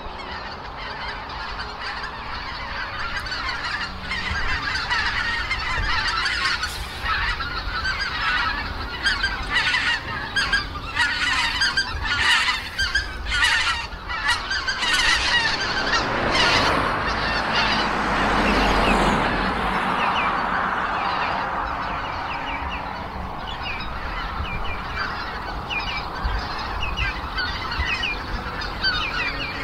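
A large flock of wild geese calling in flight: many short honks overlapping throughout, with a swell of rushing noise that rises and fades near the middle.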